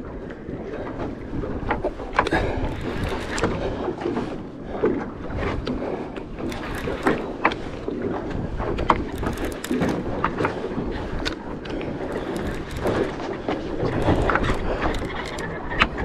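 Steady wind noise on the microphone and water against a fishing boat's hull, with scattered sharp clicks and knocks.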